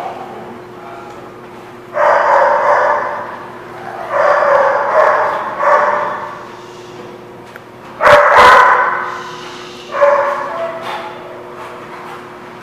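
Two dogs play-fighting, barking in four loud bursts of about a second each, over a steady low hum.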